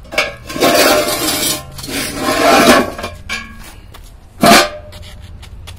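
A KAU-03p cast-iron manhole cover dragged across concrete with a pry bar, making two long grinding scrapes of metal on concrete. A single loud metallic clank follows about four and a half seconds in.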